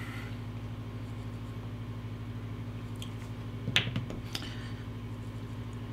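Steady low electrical hum. About four seconds in come a couple of short clicks and a rustle, the sound of a hand handling the plastic Oreo package.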